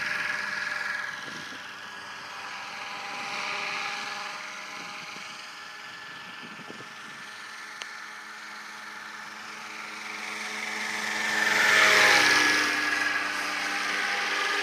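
Radio-controlled scale AS350 helicopter in flight: the steady whine of its motor and rotors, softer while it is far off and swelling to its loudest as it passes close, about twelve seconds in.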